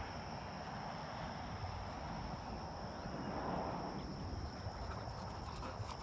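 Open-field ambience: a steady high insect drone over a low wind rumble on the microphone. Near the end come quick clicks and rustles as the retrieving dog comes back in.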